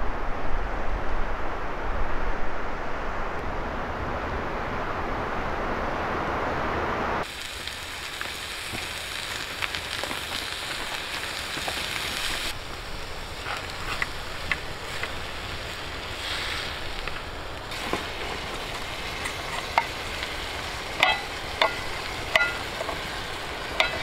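A steady hiss that cuts off about seven seconds in, then quieter sizzling and crackling of meat frying in a pan over a campfire. Near the end come a few sharp clicks of a knife cutting on a metal plate.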